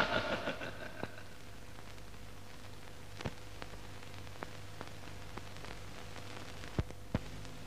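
Surface noise of a worn 35mm film optical soundtrack on a blank stretch: steady hiss and low hum with scattered clicks and pops from dirt and scratches on the film, two louder pops near the end. The last of the advert's sound dies away in the first second.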